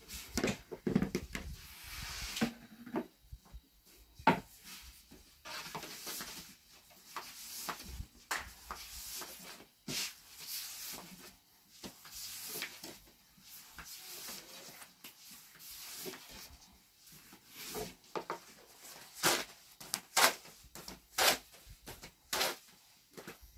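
Long thin wooden rolling pins rolling out flatbread dough on round wooden boards: irregular rubbing and swishing, with scattered knocks of wood on wood.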